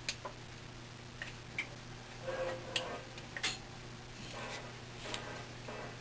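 Scattered light clicks and ticks, about seven of them at irregular spacing, with a few brief soft rustles over a steady low hum.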